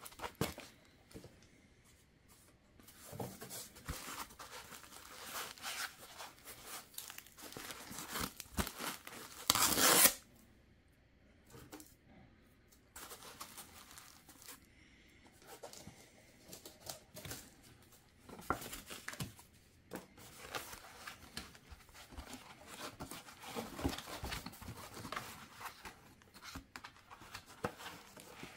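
Handling noise of packing: white styrofoam inserts scraping against each other and a plastic bag crinkling as a boxed figurine is packed away, in irregular rustles and scrapes. One short, louder scrape comes about ten seconds in.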